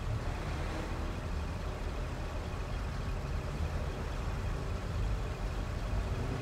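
Steady low rumble of distant city traffic, with no distinct events.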